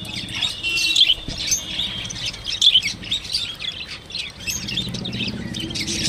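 A flock of budgerigars chattering, with many quick, overlapping high chirps and a brief held whistle near the start.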